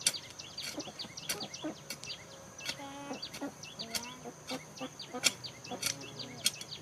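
Chickens clucking, with a pitched hen call about three seconds in, over many short, high, falling chirps. Frequent sharp knocks and a steady high whine run underneath.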